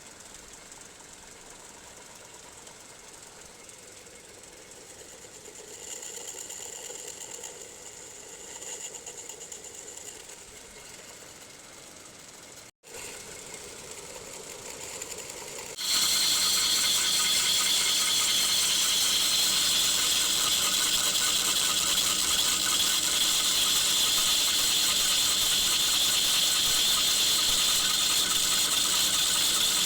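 Machine tool running at a fairly low level, then, just past halfway, a much louder steady cutting noise starts and holds: a machine-shop tool cutting laminated marine plywood.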